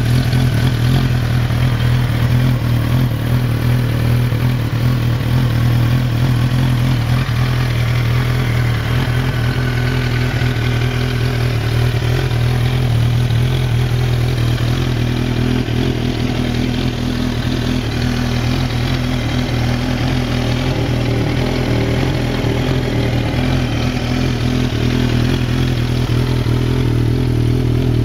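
1991 Kawasaki ZX-7R's inline-four engine idling steadily through a Muzzy aftermarket exhaust.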